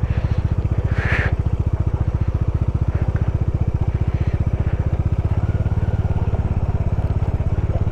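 Bajaj Dominar 400's single-cylinder engine running at low revs with an even, rapid pulsing beat, ridden slowly over rough off-road track. A short hiss about a second in.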